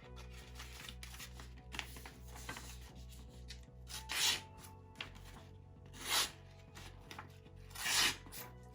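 Small blade of a Victorinox Classic Swiss Army knife slicing through paper, with light paper rustling and then three loud rasping cutting strokes about two seconds apart in the second half.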